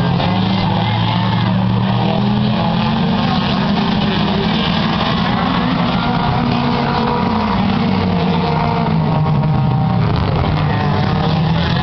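Engines of several small stock race cars running together as they lap an oval track: a loud, steady drone that rises and falls slightly in pitch.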